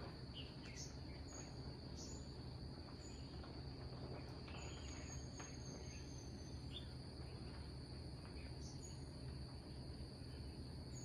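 Faint ambience of a steady, high insect trill with short bird chirps now and then, over a low hum.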